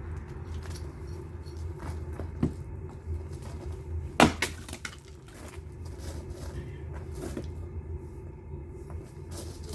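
Sharp knocks and cracks of firewood, four of them, the loudest about four seconds in, over a steady low hum.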